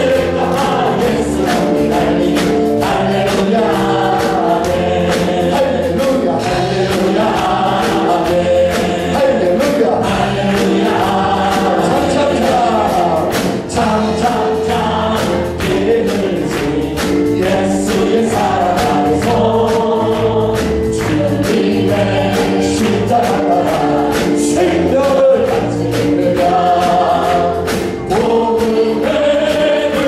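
Korean gospel praise song: a man sings lead into a microphone with many voices singing along, over live band accompaniment with a steady beat.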